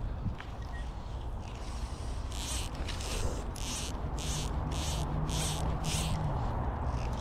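A flying insect buzzing close by for about two seconds in the second half, over a low outdoor rumble, with six short hissing strokes in quick succession around the same time.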